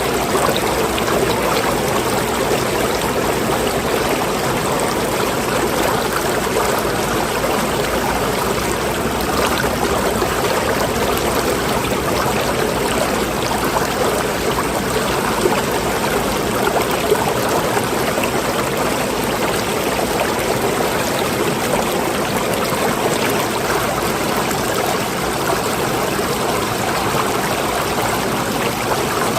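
Running water flowing steadily, a continuous even rush with no pauses.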